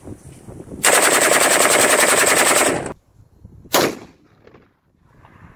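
Heckler & Koch G3 7.62x51mm rifle firing on full automatic: one unbroken burst of rapid shots lasting about two seconds. A single loud shot follows about a second later.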